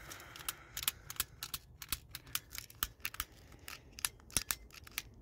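Small items being handled and rummaged through, giving many quick, irregular clicks and light rattles.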